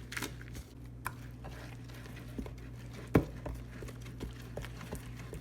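Stirring a thick, wet batter of muffin mix and applesauce in a bowl: irregular scrapes and small clinks of the utensil against the bowl, with one louder knock about three seconds in.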